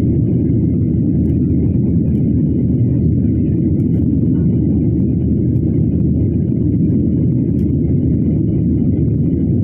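Steady low rumble of a jet airliner's cabin with the engines running.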